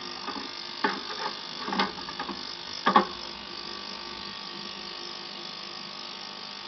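Ultrasonic cleaner bath filled with kerosene running with a steady electric hum while cleaning model-engine parts. In the first three seconds a few sharp knocks of the metal engine parts against the stainless-steel tank, the loudest about three seconds in.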